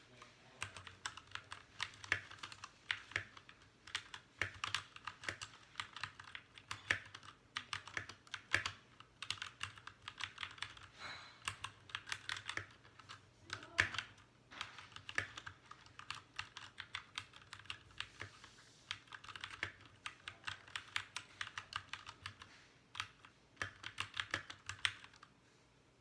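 Fast typing on a Royal Kludge RK61 60% mechanical keyboard: rapid key clacks in quick bursts with brief pauses.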